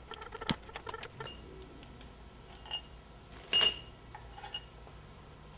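Metal tools and engine parts clinking during an engine teardown: light ticks in the first second, then a few ringing metal clinks, the sharpest about three and a half seconds in.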